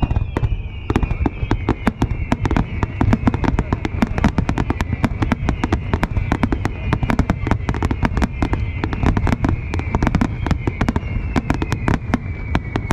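Fireworks display in full barrage: dense, rapid crackling pops several times a second over a continuous low rumble of bursts. A faint high tone glides slowly downward in pitch throughout.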